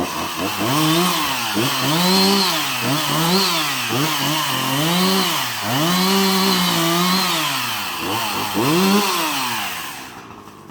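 Chainsaw engine revved up and down over and over, about once a second, the pitch climbing and dropping with each squeeze of the throttle, then dying away near the end.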